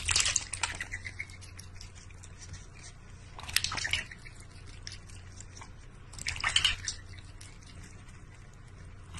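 A cat pawing at the water in a stainless steel bowl: splashes in three bursts about three seconds apart, with dripping in between.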